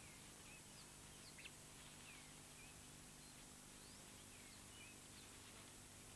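Near silence: steady faint hiss and low hum, with faint, short bird chirps scattered throughout.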